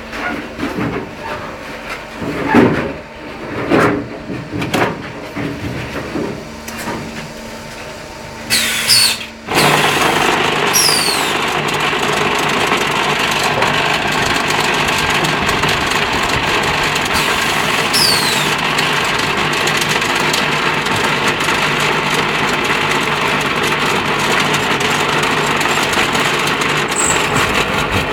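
Irregular knocks and clatters of plastic tile moulds being handled on a cement roof-tile machine. About nine seconds in, the machine's electric vibrating table starts abruptly and runs steadily with a dense rattling hum while the mortar is compacted in the mould, with a few short falling squeaks.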